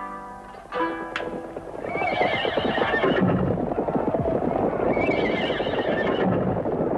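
Horses neighing twice, about two and five seconds in, over a continuous clatter of hooves. Two short held horn-like notes sound just before.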